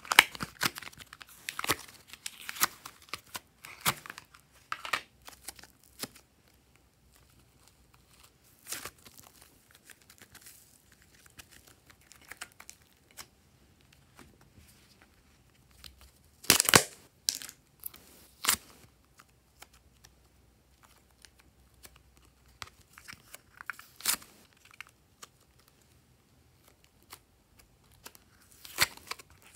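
Sticky purple slime handled and pulled from a plastic cup: irregular crackling, popping clicks. They come thick in the first few seconds, thin out, return as a louder cluster a little past halfway, and come back near the end.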